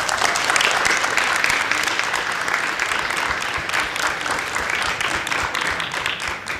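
A room of people applauding, steady clapping that begins suddenly and tapers off near the end.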